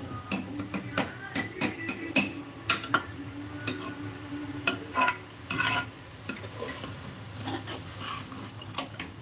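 A metal ladle scrapes and clinks against the inside of a pressure cooker as potatoes are stirred through a thick fried masala, with clustered strokes for the first six seconds and fewer after. The masala sizzles faintly in the pot.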